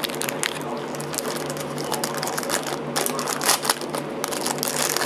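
Plastic wrapper of a frozen Hostess Ding Dong ice cream sandwich crinkling and crackling in irregular bursts as it is torn open and peeled back, over a steady low hum.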